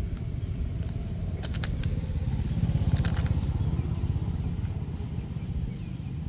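Low rumble of a motorcycle engine passing, swelling to its loudest about halfway through and then easing off. A few short crackles, like a plastic snack wrapper being handled, come about one and a half seconds and three seconds in.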